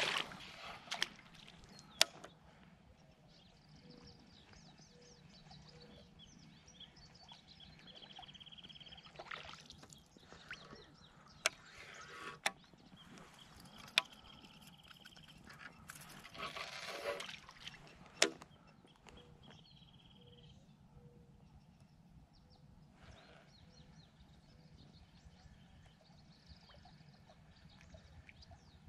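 Quiet lake ambience broken by a few sharp clicks and a short rustling burst a little past the middle, from fishing tackle being handled from a float tube.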